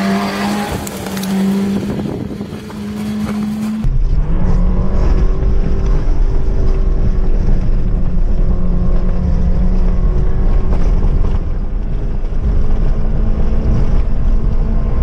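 Suzuki Swift engine held at high, steady revs while the car spins its wheels through snow, over a heavy rushing noise. The sound changes abruptly about four seconds in, then carries on at much the same steady pitch.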